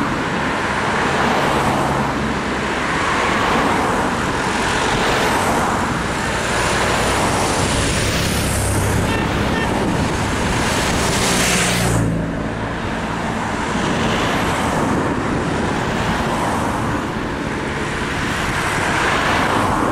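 A string of team cars and a motorcycle driving past close by, one after another, the engine and tyre noise swelling and fading with each pass. The loudest pass comes about twelve seconds in and drops off sharply.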